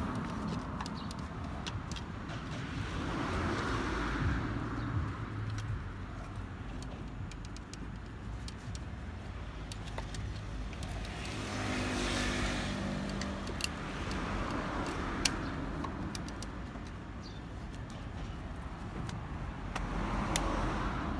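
A home-made wooden bucksaw being handled and adjusted, its metal chain clinking, with a few sharp clicks, the two loudest a little past the middle. Under it is a steady low rumble that swells up three times.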